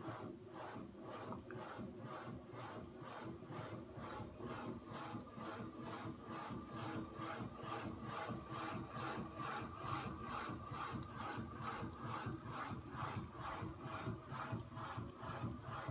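A homemade crank-and-flywheel magnet engine, driven by a battery electric motor, running at a steady speed. It makes a rhythmic rubbing knock about three times a second over a faint steady whine.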